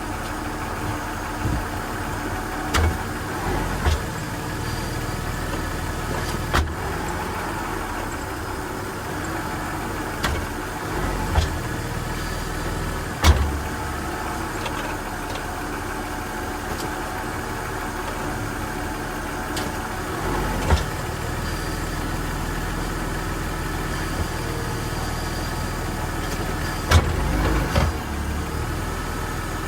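BMW 528i's straight-six engine idling steadily, with a dozen or so short clunks as the automatic transmission is shifted between park, reverse, neutral and drive; the loudest clunk comes about 13 seconds in, with a cluster near the end. The clunks are the shifting noise the owner is asking about.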